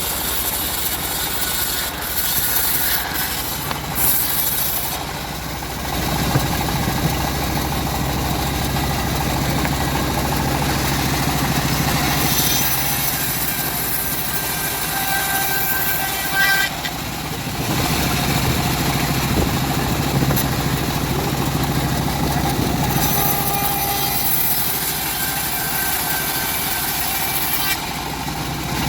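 A homemade bandsaw sawmill running steadily while cutting lamtoro logs, with an engine-like hum and a fainter higher whine that comes and goes.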